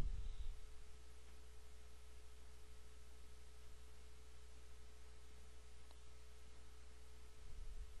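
Faint steady electrical hum with a thin, steady, higher whine over light hiss: the recording's background noise, with no other sound apart from one very faint tick about six seconds in.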